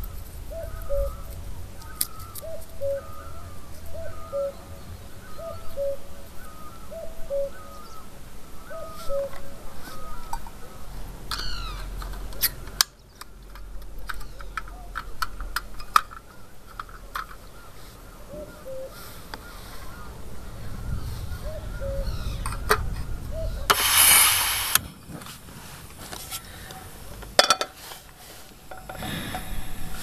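A dove, the ghughuti, cooing over and over in a steady series of short low coos for about the first ten seconds. Later come scattered sharp clicks and a loud noisy burst lasting about a second, over a low rumble.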